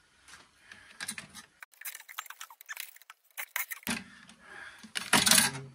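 Small sharp clicks and rattles of wire and sheet-metal parts being handled and snipped while a cash register is stripped for scrap, with a denser clatter near the end.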